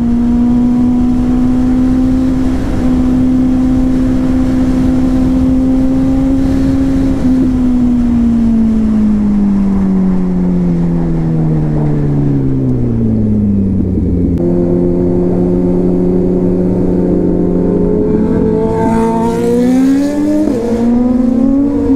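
A motorcycle engine heard from on the moving bike, over wind rush. It holds steady revs for about seven seconds, then the revs fall steadily as it slows, jump up once with a downshift about fourteen seconds in, and climb again near the end as it accelerates.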